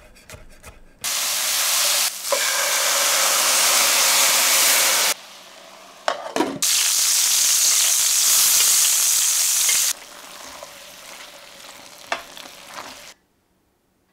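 A few quick knife taps on a wooden chopping board, then loud sizzling of food frying in hot oil in a pan, in two long stretches with a short clatter between them; the second stretch is pork chops pan-frying. The sizzle drops to a quieter crackle with a few knocks and cuts off near the end.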